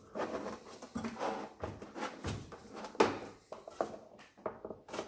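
Bread machine's sheet-metal baking chamber being pushed down into its plastic housing by hand, scraping and knocking as it rides over the small metal catches. One sharp knock about three seconds in is the loudest, with several lighter clicks after it.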